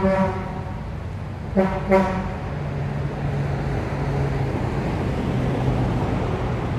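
A vehicle horn beeps once, then twice in quick succession about a second and a half later, each beep short and flat in pitch. A motor vehicle's engine then runs steadily.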